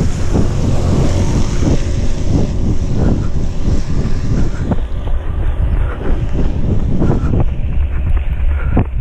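Wind buffeting the microphone of a GoPro Hero5 Session carried on a running race, a steady low rumble with the runner's footfalls coming through at about two to three a second.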